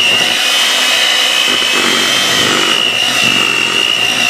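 Electric hand mixer running at a steady speed, its twin wire beaters whipping strawberry buttercream frosting in a stainless steel bowl, with a steady high motor whine.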